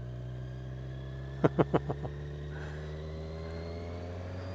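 Motorcycle engine running steadily under light throttle, its pitch rising slowly as the bike gently gains speed, with some wind noise. About a second and a half in, four quick sharp sounds come in a row.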